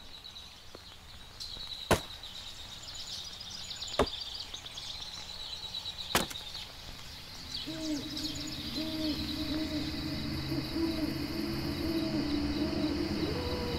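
Night-time ambience of insects chirring steadily, cut by three sharp knocks about two seconds apart. From about halfway through, a low wavering drone joins in.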